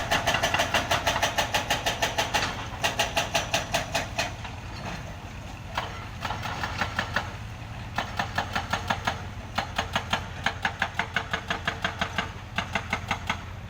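Heavy engine idling steadily, with runs of rapid clicking or knocking, about six a second, that start and stop every second or two.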